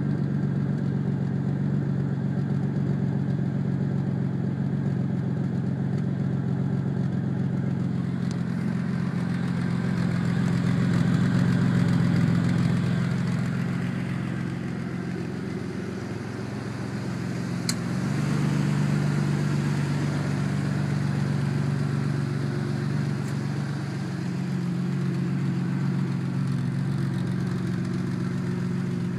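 Pickup truck engine idling steadily with a really loud exhaust, heard first at the tailpipe and later from inside the cab. The owner puts the loudness down to hitting a pothole, pointing to exhaust damage. One sharp click about two-thirds through.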